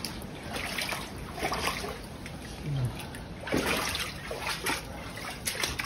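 Footsteps splashing through shallow floodwater, in irregular sloshes, the strongest a little past halfway.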